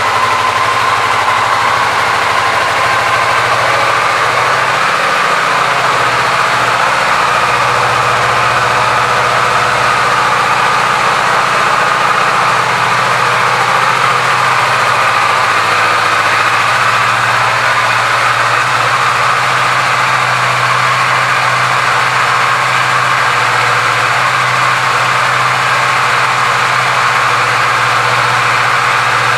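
Kawasaki Vulcan S's 649 cc parallel-twin engine idling steadily.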